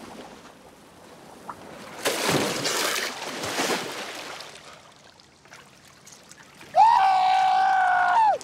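Water splashing as someone moves through shallow sea water, the loudest splashing about two to four seconds in. Near the end comes a loud, long held voice note of about a second and a half, steady in pitch.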